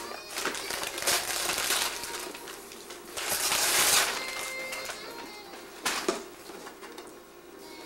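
Wrapping paper being torn and crinkled off a gift box, in several rustling bursts, the loudest about three to four seconds in.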